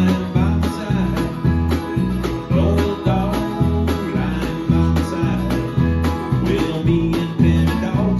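Live band playing a country-rock song: acoustic guitar, electric bass, keyboard and a drum kit keeping a steady beat.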